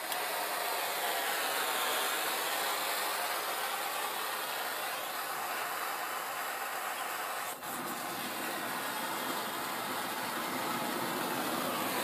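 Steady hiss of a hand-held propane torch flame aimed into a homemade propane forge while its burner is being lit. The hiss dips briefly about seven and a half seconds in.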